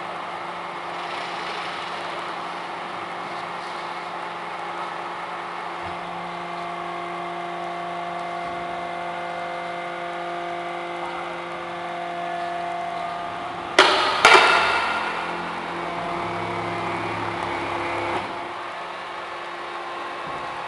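Hydraulic vertical cardboard baler running with a steady hum of several tones. About fourteen seconds in come two sharp loud bangs half a second apart, followed by a deeper hum for about four seconds before the steady hum settles back.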